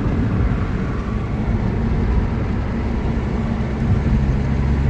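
Steady low rumble of a running motor vehicle, like engine and road noise.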